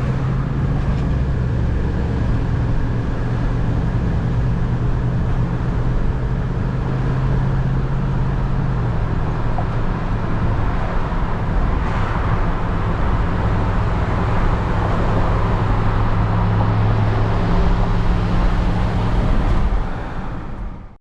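A road vehicle's engine running steadily while driving, with road noise; its low drone shifts pitch about nine seconds in. The sound fades out near the end.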